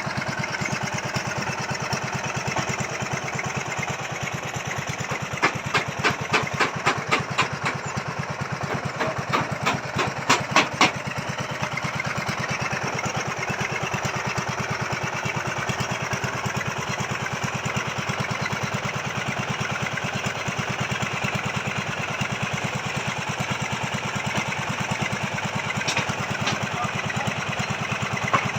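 Engine of a motorised earth-boring auger running steadily. There are two runs of sharp knocks: about six at roughly two a second some five seconds in, and about five more around ten seconds in.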